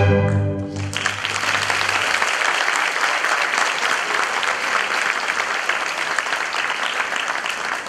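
String music ends on a held final chord that fades out about two seconds in, while an audience breaks into steady applause about a second in that goes on and starts to die away near the end.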